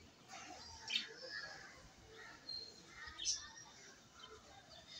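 Faint small-bird chirps and squeaks, scattered and irregular, with a few sharp clicks and faint voices in the background.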